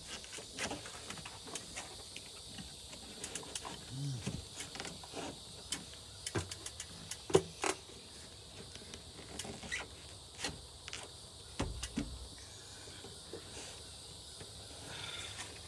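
Scattered clicks, taps and scrapes of a plastic in-channel wind deflector being flexed and worked into a van door's window channel by hand, with a low thump about three-quarters of the way through.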